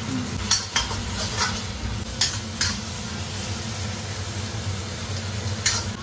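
Onions and tomato–chilli–garlic paste sizzling in an iron kadhai while a steel spatula stirs and scrapes them, with several sharp metal clinks of the spatula on the pan in the first three seconds and once more near the end.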